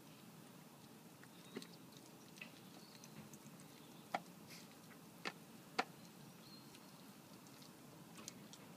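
Red fox eating wet food from a plastic bowl: faint chewing, with a handful of sharp clicks scattered through it.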